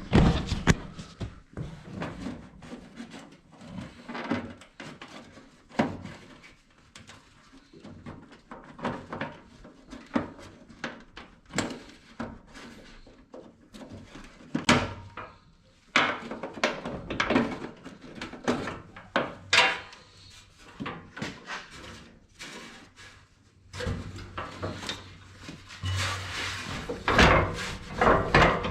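Scattered knocks, clicks and rattles of hand work on a riding lawn mower's hood as it is unfastened and moved aside, busier in the middle and near the end.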